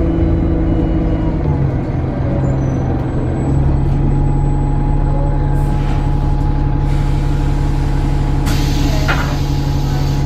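Alexander Dennis Enviro 300 single-deck bus running, its engine note shifting about a second and a half in and then holding steady. A loud hiss of released air comes near the end, with fainter hissing a little before it.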